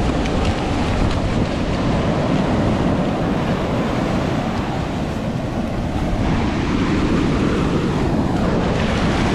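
Ocean surf washing onto a beach, with wind buffeting the microphone as a steady low rumble.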